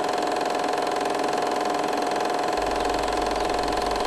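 A small motor running steadily, with a constant hum and a fast, even rattle. A low rumble joins about two and a half seconds in.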